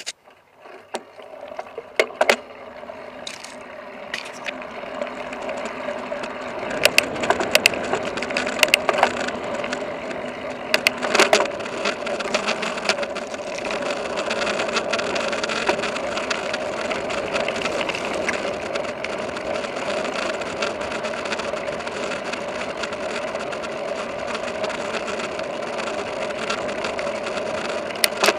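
Mountain bike rolling along a gravel dirt trail: a steady rushing of tyres and wind that builds over the first few seconds, with sharp clicks and rattles from bumps during the first dozen seconds.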